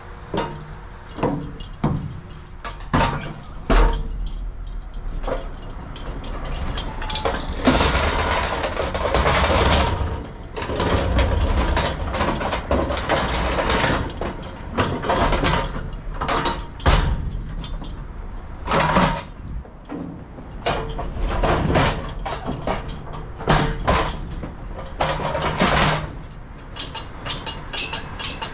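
Manual pallet jack being worked in a freight trailer: repeated clanks and rattles of its steel frame and handle, with several stretches of its wheels rumbling over the trailer floor and metal plate.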